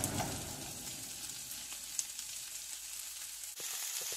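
Chicken and asparagus sizzling in a non-stick frying pan, a steady frying hiss with one sharp tick about two seconds in.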